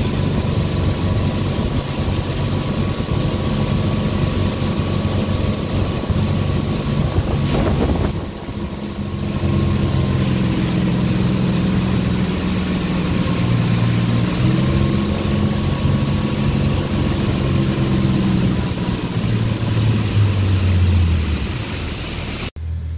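Motorboat engine running under way, with wind on the microphone. The engine note wavers about halfway through and drops near the end as the boat slows.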